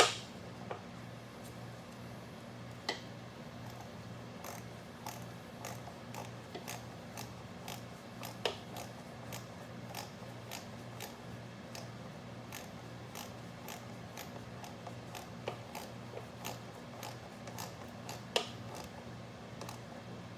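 Irregular small clicks and metallic taps from hand work on a lawn mower carburetor, a few sharper knocks among them, over a steady low hum.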